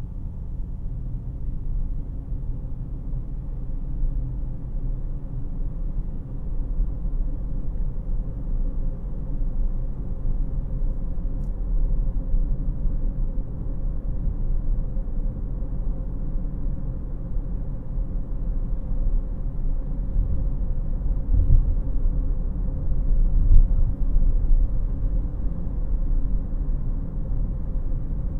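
Cabin noise inside a 2018 Honda CR-V LX on the move: a steady low rumble of tyres on the road and the 2.4-litre four-cylinder engine. Two light knocks come about three quarters of the way through.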